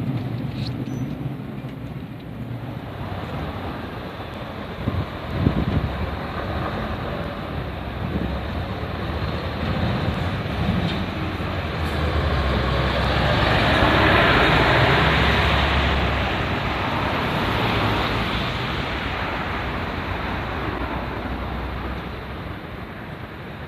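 Traffic passing, a continuous rumble that swells to its loudest about fourteen seconds in and then fades, with a couple of sharp knocks about five seconds in.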